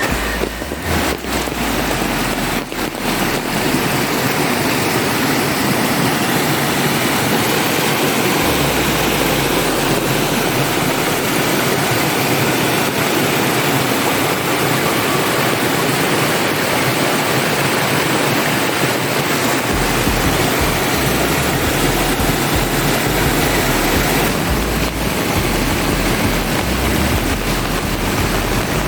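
Loud, steady rush of water, such as a rain-swollen stream or runoff, with a low rumble that grows stronger about two-thirds of the way through.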